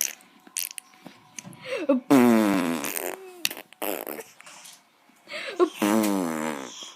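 Baby making buzzy, fart-like noises: two long ones of about a second each, one about two seconds in and one near the end, with a few shorter squeaky sounds between.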